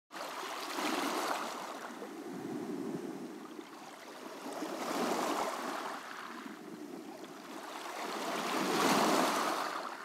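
Small waves washing up on the shore, the surf swelling and ebbing three times, about every four seconds.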